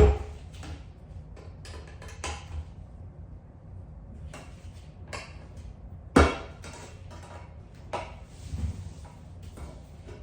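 Knocks and clinks of painting supplies being handled: a sharp knock at the start and another about six seconds in, with lighter taps between.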